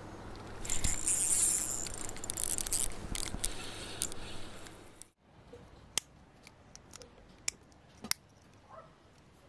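A cast with a spinning rod: fishing line hisses out through the rod guides, loudest for about a second and then tailing off. After a sudden cut, a few sharp small clicks come from a metal spoon lure being handled.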